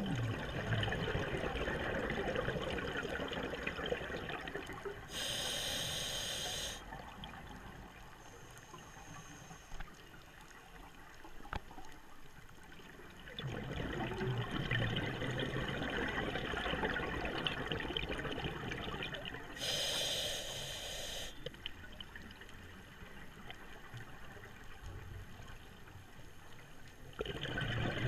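Scuba diver breathing through a regulator underwater: long stretches of exhaled bubbles burbling past the mask, and two short hissing inhalations through the regulator, about five and twenty seconds in.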